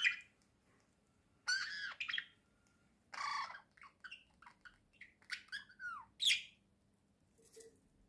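Budgerigars chirping and squawking in short bursts, with a quick run of chirps from about four to six seconds in.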